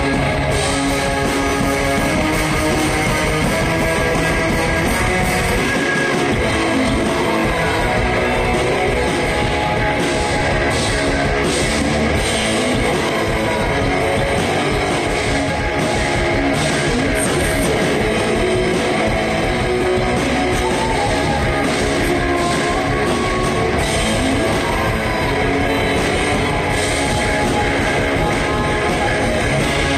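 Rock band playing live: electric guitars and drum kit, loud and continuous.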